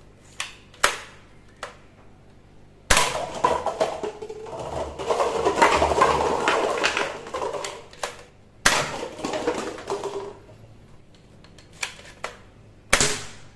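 A Thor-hammer-shaped toy foam-dart blaster is fired at a stack of paper cups on plastic blocks. A few light clicks come first. Then there are three sudden crashes of cups and blocks knocked down and clattering across the floor, the first lasting several seconds.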